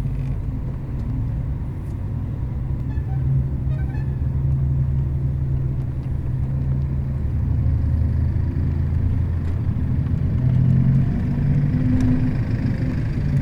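Bus engine and road rumble heard from inside the passenger cabin while driving, a steady low drone with a few faint rattles and clicks.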